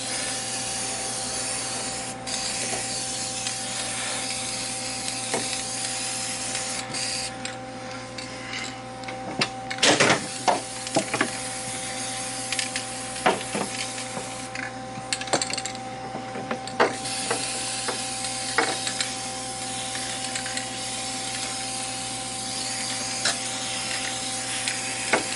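Aerosol can of flat black spray paint hissing in long bursts, with brief pauses. A few sharp knocks of metal on metal come about ten seconds in and again a few seconds later, over a steady low hum.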